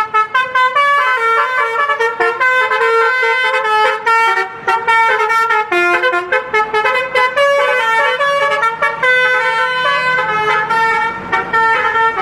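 A bus's telolet basuri horn, a multi-tone musical air horn, playing a long, rapid melody of short notes with a few brief pauses.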